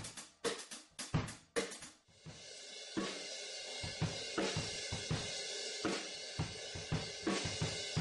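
Drum kit played in a studio room. It opens with a run of separate sharp drum hits, about four a second, and about two seconds in settles into a beat of kick and snare hits under a steady wash of cymbals.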